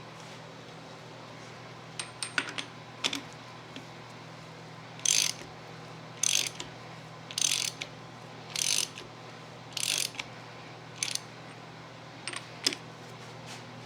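A hand ratchet wrench clicking through about five short strokes a little over a second apart, with scattered metal clinks of tools and shock parts before and after, over a steady low hum.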